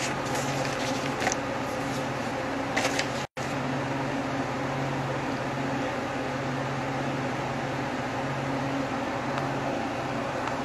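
Steady hum and hiss of a room air conditioner, with a few faint rustles of a paper sheet in the first three seconds. The sound cuts out for an instant a little over three seconds in.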